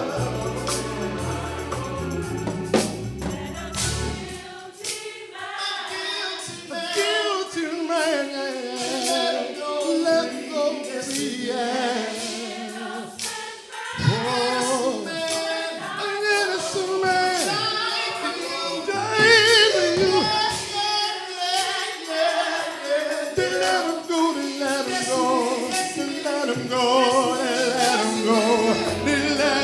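Gospel choir singing with a band, percussion hits through the music; the bass line drops out after about four seconds and returns near the end.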